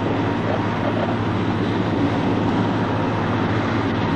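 Fishing boat engine running steadily at speed, a low drone with water rushing past the hull.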